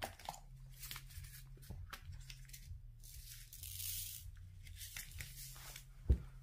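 Adhesive strip being peeled and torn off a diamond painting canvas: a run of short crackly rips, a longer hissing peel about three and a half seconds in, and more rips around five seconds. A single low thump near the end.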